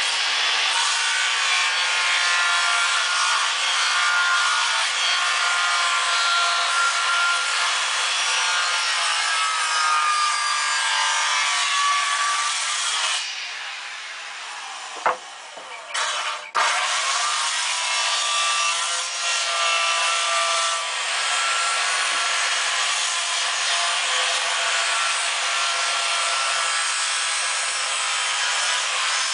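A handheld power tool working wood continuously, easing off briefly about halfway with a couple of clicks before running on.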